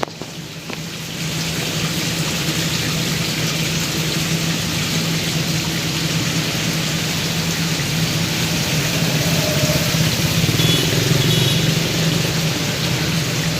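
Steady rushing noise of river water, with a low steady hum underneath.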